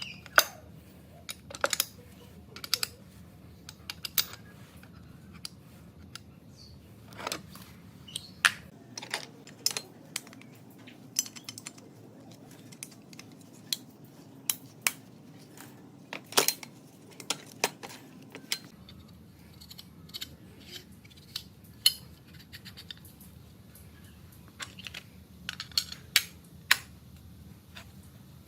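Irregular sharp metallic clicks, taps and clinks, several times a second at busy moments and sparser elsewhere, as small metal machine parts and hand tools are handled and set down.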